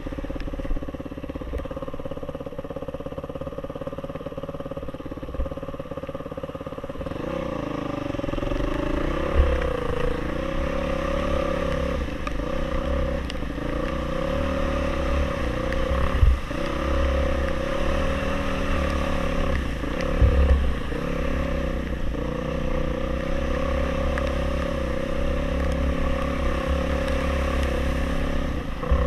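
Off-road motorcycle engine running, its pitch shifting up and down with the throttle, under a low rumble. There are a few sharp knocks, about a third of the way in, midway and again a few seconds later.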